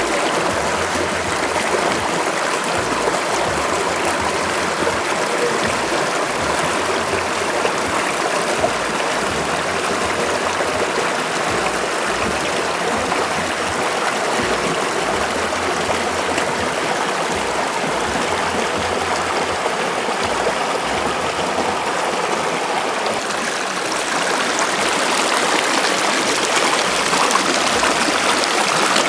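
Shallow river water rushing and splashing over rocks and boulders: a steady, even rush that grows a little louder near the end.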